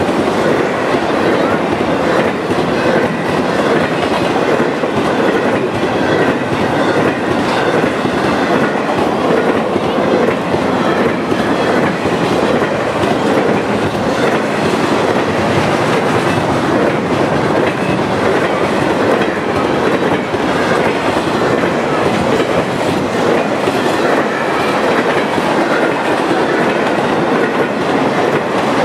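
Empty flatcars of a Norfolk Southern freight train rolling past at speed: a loud, steady rumble and clatter of steel wheels on the rails.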